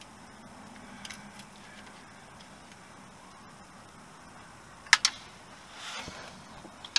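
A tool prying at the crankshaft oil seal plate on the engine block. There is a faint knock about a second in, a sharp metallic knock about five seconds in, and a short scraping rasp just after. The plate is stuck and does not pop free.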